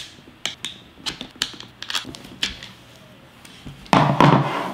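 Sharp clicks and taps as small metal mounting bolts are pulled out of a plastic inline-skate sole plate and set on a wooden table. Near the end comes a louder rustle of the sole plate and carbon-fibre boot being handled.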